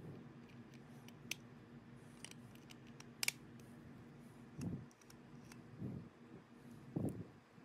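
Light clicks and taps of Craftsman drill housing parts being handled and fitted together by hand, with three soft low bumps in the second half.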